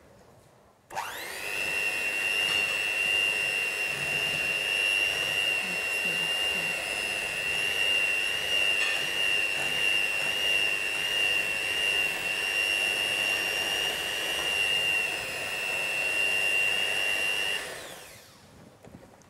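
Electric mixer running at one steady speed, whisking set, cooled crème pâtissière until it is smooth again. It starts about a second in and cuts off shortly before the end.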